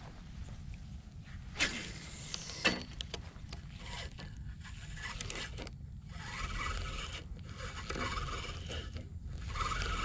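Close rustling and scraping of clothing and brush against a body-worn camera, with two sharper scrapes about a second and a half in. Over it runs a low rumble of wind on the microphone.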